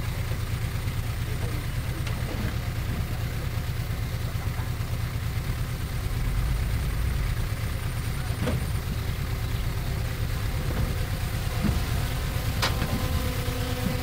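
Heavy-equipment diesel engine running steadily with a deep drone, with two sharp metallic knocks, the louder one near the end.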